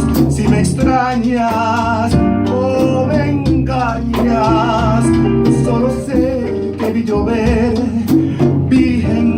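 Live Latin jazz ballad: a band with guitar and bass plays on while a male singer holds long notes with vibrato.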